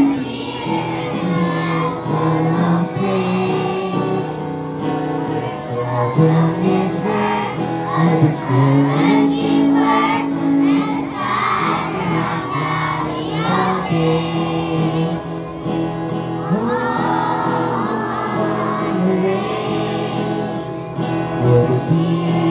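A group of schoolchildren singing a song together over instrumental accompaniment.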